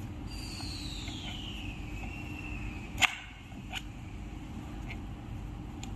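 Screwdriver prying a scooter tyre's rubber bead onto its wheel rim: a squeal that falls in pitch over the first few seconds, then a sharp snap about three seconds in, followed by a softer click, as the bead is worked into its seat.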